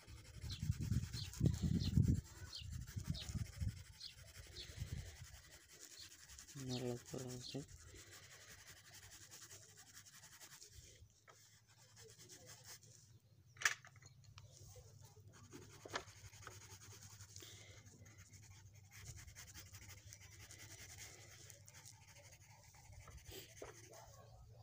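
Coloured pencil rubbing on paper in short, repeated shading strokes. A brief low pitched sound comes about seven seconds in, and a single sharp click near the middle.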